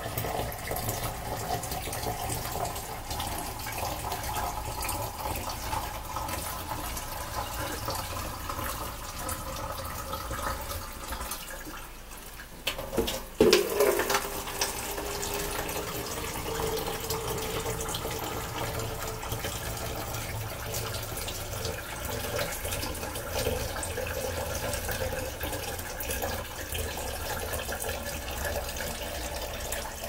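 Water running and splashing into a stainless steel kitchen sink as it is poured from a plastic cup over hair to rinse it. A brief cluster of sharp knocks, the loudest moment, just after halfway.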